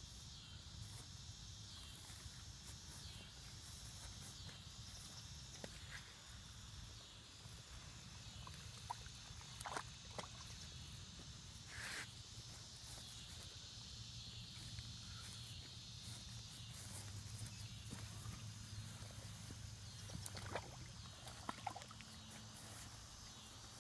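Faint outdoor ambience: a steady high insect chorus, with a few scattered soft knocks and rustles.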